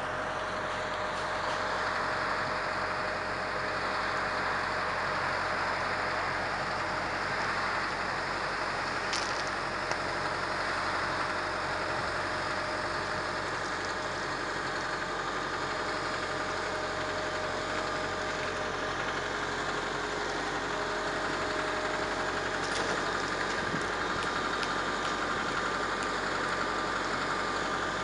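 Cat M315D wheeled excavator's diesel engine idling steadily, with a steady whine over it.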